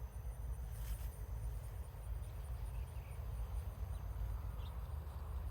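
An insect trilling steadily, a high pulsed note, over a low outdoor rumble, with a brief knock about a second in.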